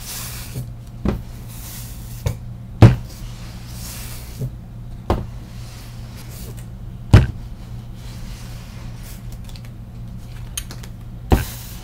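Household clothes iron pressed and slid over a paper tag on a craft sheet: irregular knocks as the iron is set down and bumped on the table, two of them loud, with soft sliding swishes between them over a steady low hum.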